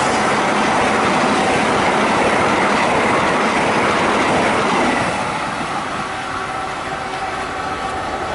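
Express passenger train passing close by at speed: a loud, dense rush of wheel and rail noise with some clickety-clack over the joints, which falls off about five seconds in as the train draws away.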